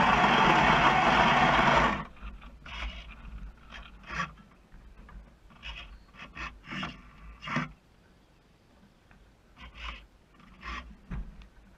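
Sail winch servo of a radio-controlled sailboat running, heard through the hull as a steady rasping whirr that cuts off suddenly about two seconds in as it trims the sail. Afterwards only faint, scattered small splashes and knocks of water against the hull.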